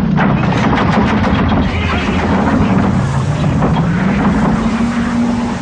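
Horror-film soundtrack effects: a loud, dense rushing noise like a storm wind, full of crackles and knocks. Under it a low drone sinks about halfway through and rises again.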